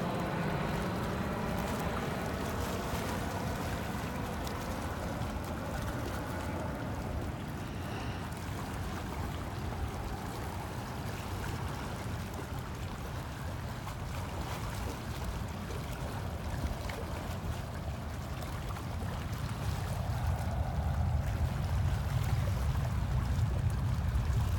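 Jet airliner on landing approach moving away, its engines' whining drone with several wavering tones fading out over the first several seconds. After that comes a steady rumbling hiss of wind and lapping water, which grows louder near the end.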